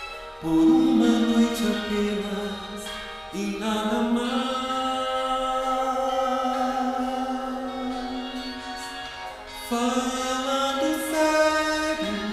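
Slow Brazilian popular music (MPB) ballad playing a run of long held notes, each entering sharply, the middle one lasting about six seconds.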